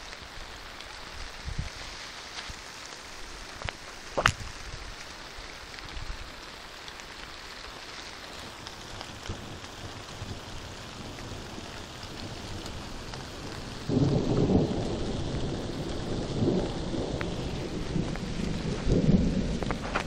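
Steady rain hiss with a few sharp taps, one loud one about four seconds in. About fourteen seconds in, a loud rolling thunder rumble sets in and keeps going through the rest.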